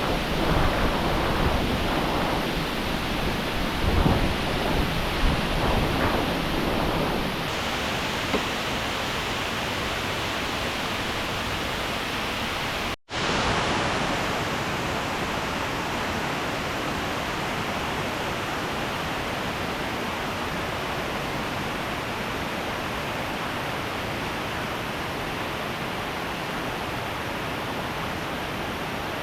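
Steady rush of a waterfall's falling water, with some louder surges in the first several seconds. The sound cuts out for a moment about thirteen seconds in.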